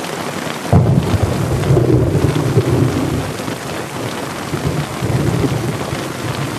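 Heavy rain pouring onto open water in a thunderstorm. A deep rumble of thunder breaks in a little under a second in and rolls on, swelling again later.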